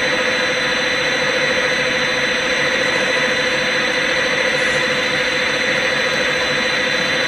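CNC lathe running with its spindle turning, a steady whine over an even hiss, as the tool takes a light turning pass on the bar.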